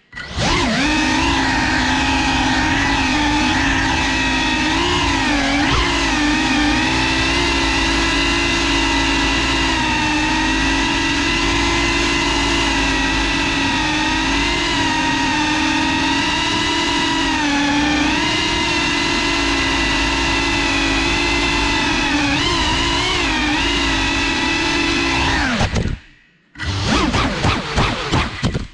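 Brushless motors and propellers of a GEPRC FPV quadcopter: a steady multi-tone whine whose pitch wobbles up and down with the throttle. It cuts out briefly about 26 seconds in, comes back for a couple of seconds, then stops.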